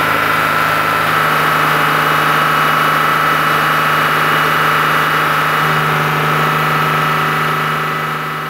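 Car engine held steady at about 3,000 rpm, heard from beneath the vehicle beside the exhaust pipe, during an exhaust backpressure test.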